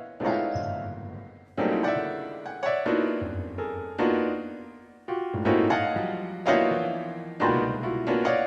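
Slow, sad piano music: chords struck about once a second, each left to ring and fade.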